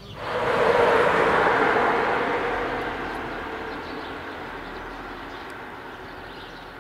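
A loud rushing noise that comes in suddenly, peaks about a second in and then slowly fades away over several seconds.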